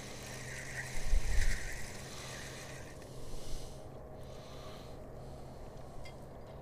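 Spinning reel being cranked to retrieve a hooked fish, its gears whirring with a rhythmic rise and fall about twice a second, stopping about two and a half seconds in. A low thump about a second in.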